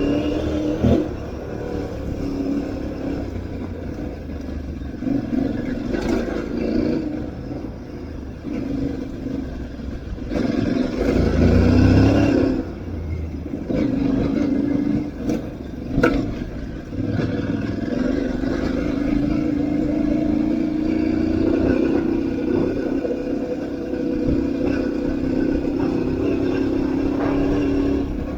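Aprilia Tuareg 660's parallel-twin engine running off road under changing throttle, its pitch rising and falling. There is a louder burst of revs about twelve seconds in, and a few sharp knocks along the way.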